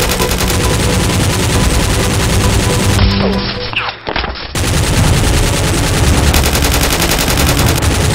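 Rapid automatic gunfire sound effects, machine-gun bursts firing continuously, dubbed over a toy-blaster shootout; the firing briefly drops away about three to four seconds in.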